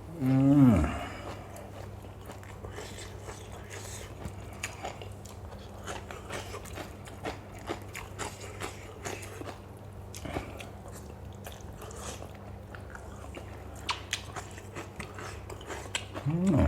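Close-up mouth sounds of someone chewing a mouthful of spicy som tum with crunchy lotus stems and fresh shrimp: many small wet crunches and clicks. A short voiced exclamation falling in pitch comes just after the start, with another brief one near the end.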